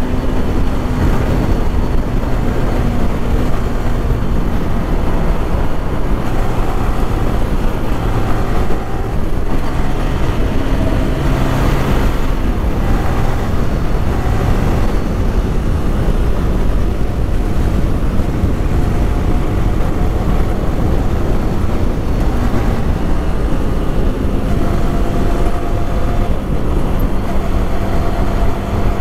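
Yamaha R15 V3 motorcycle riding at speed, its engine note rising and falling with the throttle and gear changes under heavy wind rush on a helmet-mounted microphone.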